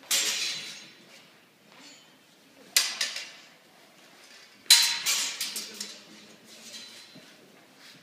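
Practice longswords clashing blade on blade in sparring: three sharp metallic clashes that ring briefly in a large hall. The first comes right at the start, the second a little under three seconds in with a couple of quick follow-up clinks, and the loudest about halfway through, followed by a rapid run of smaller clinks.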